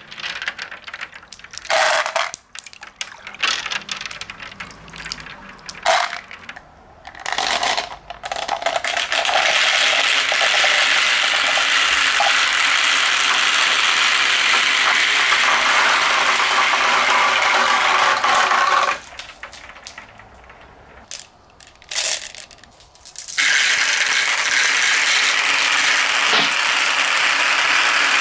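Marbles rolling and clattering down a plastic marble run: scattered clacks and short rolls at first, then long steady rolling as the marbles spiral down the high-rise slides, with a quieter break of a few seconds before the rolling resumes.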